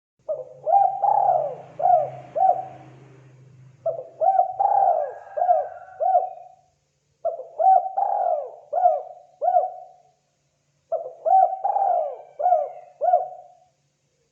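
Spotted dove (terkukur) cooing: four phrases of several quick, swooping coo notes each, about three and a half seconds apart.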